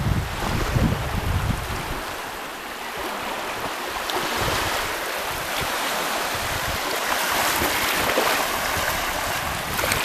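Small waves washing in over sand at the water's edge: a steady wash and fizz of shallow seawater. Wind buffets the microphone in the first second or two.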